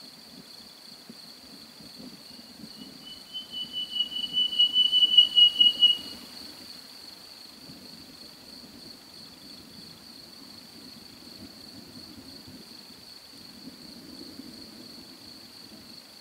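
An animal's rapid pulsed whistle-like call, about five pulses a second, growing louder for some three seconds and then stopping abruptly. Under it run a steady high insect-like trill and a low rumble.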